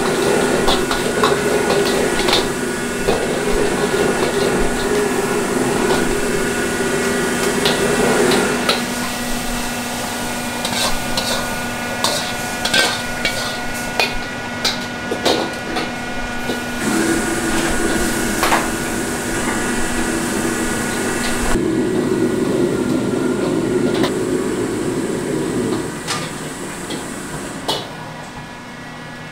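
Stir-frying crab in a carbon-steel wok on a commercial gas wok range: a steady drone from the range runs under repeated metal clanks and scrapes of utensils against the wok. The drone cuts off and restarts a few times and drops away in the last few seconds.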